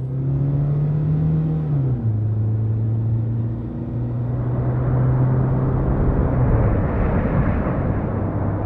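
A steady engine-like hum that drops in pitch twice, with a rushing swell of noise in the second half, like surf breaking.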